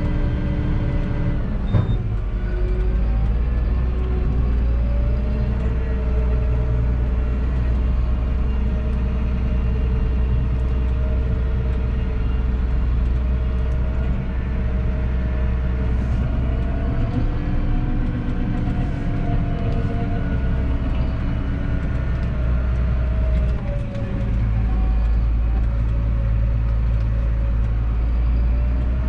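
Massey Ferguson 7718S tractor's six-cylinder diesel engine running under way, heard from inside the cab, its note rising and falling slightly with engine speed. A single sharp click about two seconds in.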